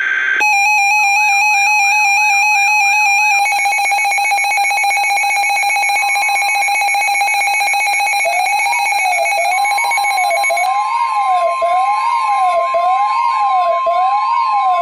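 Weather radio emergency alert tones announcing a new severe thunderstorm warning. A steady electronic buzzing alarm tone turns harsher a few seconds in. A little past halfway a siren-like warble rising and falling about once a second starts, soon joined by a steady high tone.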